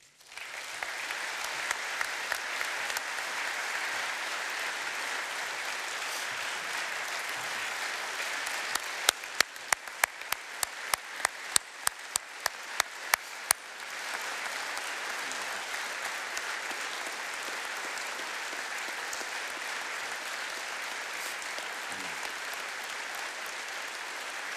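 A large audience applauding steadily. For a few seconds in the middle, a string of louder sharp clicks, about three a second, stands out above the applause.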